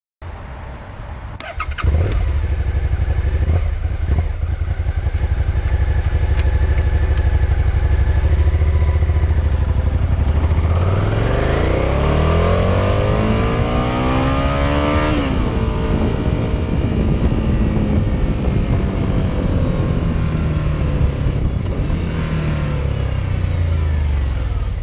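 Suzuki SV650's 645 cc V-twin running through its exhaust: it grows louder about two seconds in and holds a steady low note, then the revs climb gradually for about five seconds. The note drops abruptly as the throttle closes and the revs sink slowly back down.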